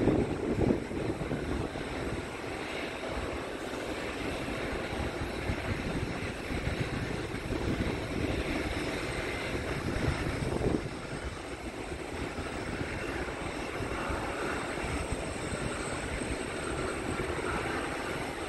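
Aircraft engines at an airport: a steady, unbroken rush of engine noise.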